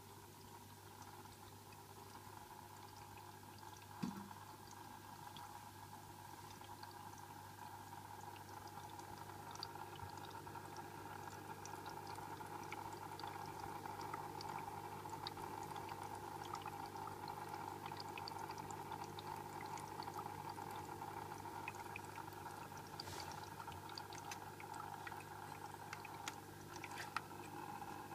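Tetra VX-75 canister filter running: a steady motor hum and water flow with irregular rattling ticks from around the impeller, plus a couple of sharper clicks. The owner does not think the rattle is air caught in the impeller.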